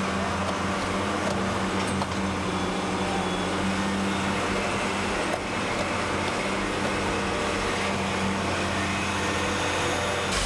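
A heavy construction machine's engine running steadily, a low even hum with no change in pitch, as the crane swings its concrete bucket over to the truck.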